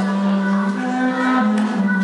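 Slow music: a melody of long held notes that step up and down in pitch every half second or so.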